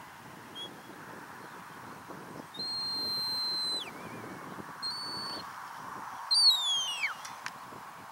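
Sheepdog handler's whistle commands to a working border collie: a long steady high note that drops off at the end, a short note, then a louder note sliding steeply down. A faint steady outdoor hiss lies underneath.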